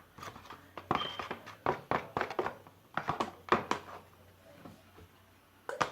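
Irregular taps and knocks of things being handled on a counter: about a dozen in the first four seconds, then a quiet stretch and one more near the end.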